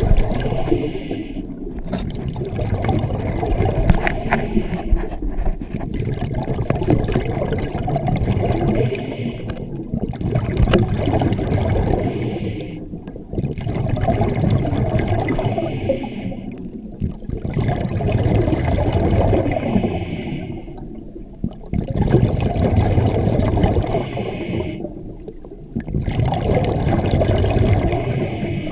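Scuba diver breathing through a regulator underwater, heard through a GoPro housing: a hiss on each inhale and a rumble of exhaled bubbles, repeating in a steady cycle about every four seconds.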